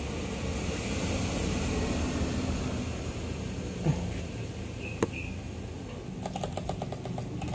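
Guitar pedal circuit board and its metal case being handled and shifted about on a workbench, over a steady background hum. There is one sharp click about five seconds in, and a quick run of small clicks near the end.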